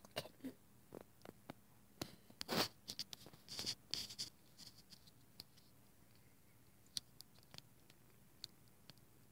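Faint scratching and rustling handling noise close to the microphone, with a cluster of louder scrapes about two to four seconds in and a few sharp clicks near the end.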